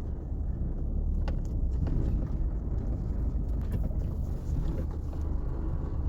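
Car driving along: a steady low rumble of engine and road noise, with a few faint clicks.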